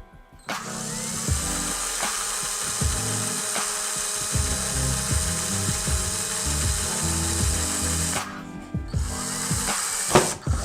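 Handheld power tool running steadily for about seven and a half seconds, stopping, then running again briefly near the end, over background music.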